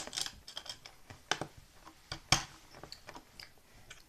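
Plastic Lego bricks clicking as they are handled and pressed together: a scatter of short sharp clicks, the loudest a little past two seconds in.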